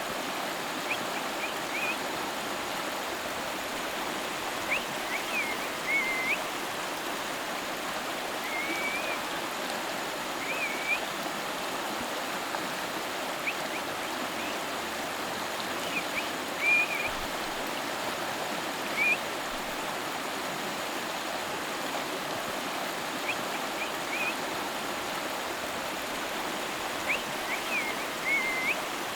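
River water flowing in a steady rush, with short high chirps recurring every few seconds over it.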